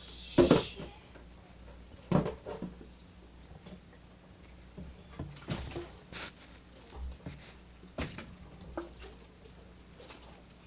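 Plastic water bottle being flipped and handled: a handful of short knocks and thuds as it lands and is picked up, the loudest about half a second in.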